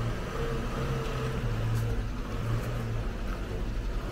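GAZ-24 Volga's engine running at low revs, a steady low hum.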